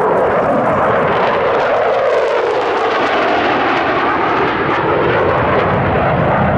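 Loud jet roar of two Mitsubishi F-2 fighters flying over in a pair, each powered by a single F110 afterburning turbofan. The roar dips in pitch about two seconds in as they pass.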